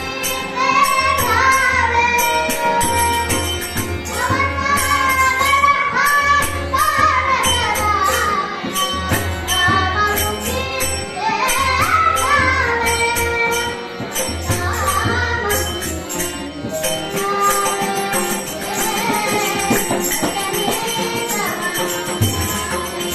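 A boy singing an ornamented, gliding melody over music accompaniment, with jingling percussion and a low bass layer that drops in and out.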